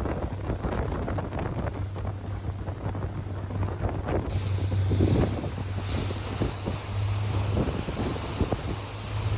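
Wind buffeting the microphone over a steady low hum and rushing, splashing water, as from a moving motorboat. The sound shifts abruptly about four seconds in.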